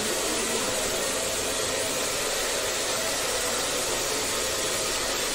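Small battery-powered handheld fan running steadily close to the microphone, a constant whirring hiss with a faint motor hum.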